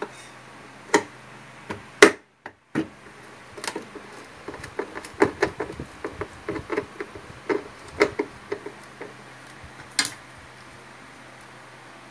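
A loudspeaker driver being fitted by hand into a wooden speaker cabinet: irregular clicks, knocks and light rattles of the driver's frame and screws against the wood. A sharper knock about two seconds in is the loudest, followed by a moment of silence.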